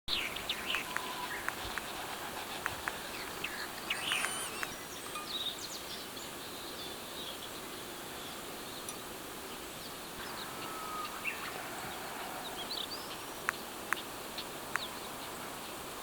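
Wild birds giving short, scattered chirps and calls, thickest in the first few seconds with a few sharp ones near the end. A steady high hiss runs underneath.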